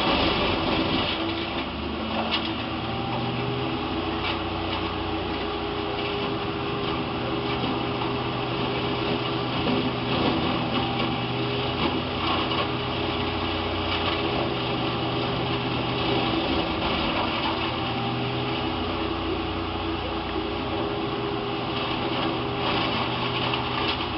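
Engine of tree-removal machinery running steadily, its pitch shifting slightly now and then.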